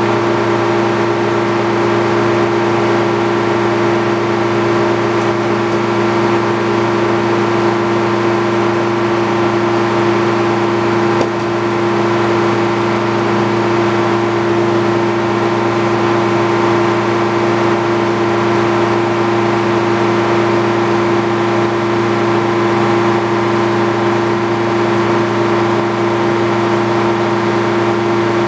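Circular sawmill running steadily with no cut being made: a constant machine hum with a strong steady pitched tone.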